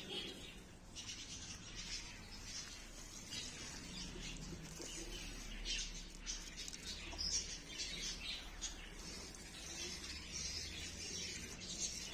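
Water from a plastic watering can spattering softly and steadily onto soil and plant leaves.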